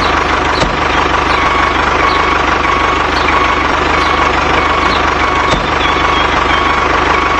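An engine or motor running steadily with a constant low hum, and a short squeak-like tone repeating about every half second over it.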